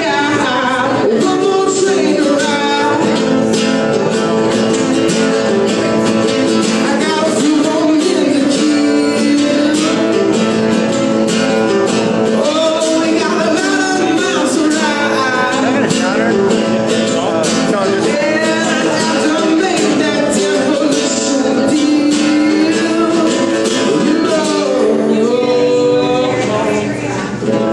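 A man singing live with acoustic guitar accompaniment.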